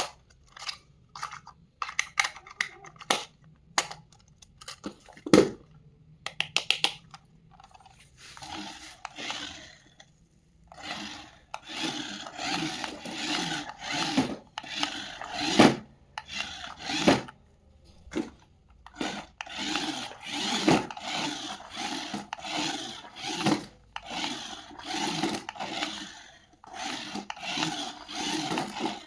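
Light clicks and taps for the first few seconds, then repeated rubbing, scraping strokes, about two a second, that run on to the end.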